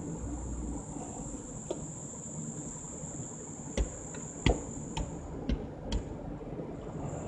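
Steady high-pitched insect trilling under the low rumble of a car driving, fading out about five seconds in. About halfway through come five sharp knocks, roughly half a second apart.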